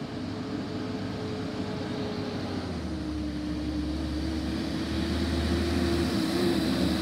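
Garbage truck's diesel engine approaching, growing steadily louder. Its engine note drops to a lower pitch about a third of the way in and holds there, with a deeper rumble for a few seconds after.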